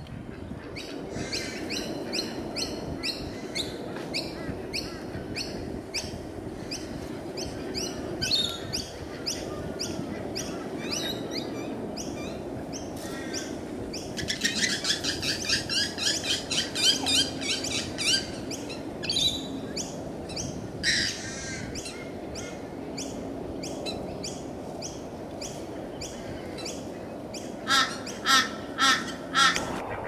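Birds calling: a steady run of short high chirps, about two a second, then a burst of rapid chattering midway, and four loud calls in quick succession near the end, over steady low background noise.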